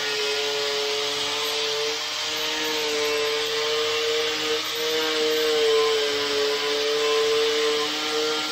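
Metabo angle grinder running steadily under load, its wheel grinding body filler off a steel sill panel; the motor's pitch sags slightly now and then as it is pressed into the work.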